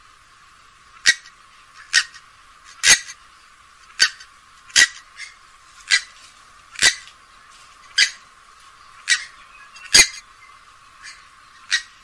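Grey-headed swamphen (purple swamphen) giving short, sharp single calls, about one a second.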